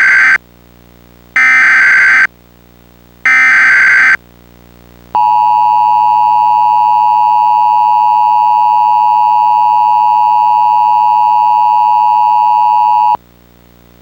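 Emergency Alert System SAME header: three short bursts of digital data tones, about a second apart, then the steady two-tone EAS attention signal, held for about eight seconds before it cuts off. Together they mark the start of a new emergency alert.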